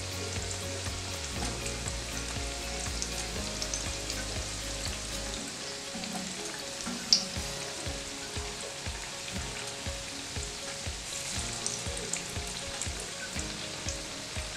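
Saltfish fritters frying in hot oil in a pan: a steady sizzle full of small crackles, with one sharp click about seven seconds in.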